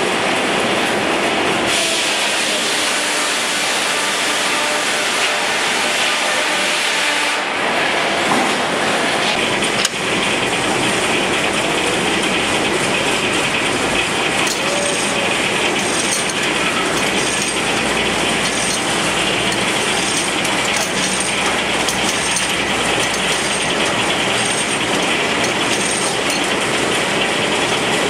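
Rumely 36-120 twin-cylinder steam traction engine running steadily under load, belted to a working sawmill, the engine and mill machinery heard together. The sound changes about seven seconds in, and there is a sharp knock near ten seconds.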